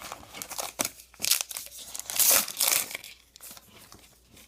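Baseball trading cards and their pack wrapper handled and flipped through: irregular rustling and crinkling with a few sharper crackles, busiest about two seconds in.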